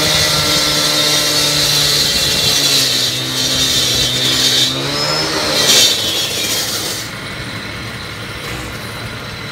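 Gas-powered concrete saw cutting pavement: a loud engine note under a high, hissing blade noise. The engine pitch sags from about two and a half seconds in and climbs again around five and a half seconds. Near seven seconds the sound drops to a quieter, steady drone.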